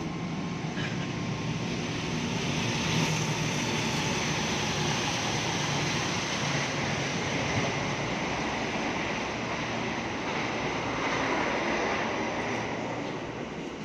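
KRL electric commuter train moving along the platform: a steady rush of wheel and motor noise with a low hum, swelling over the first few seconds and easing near the end.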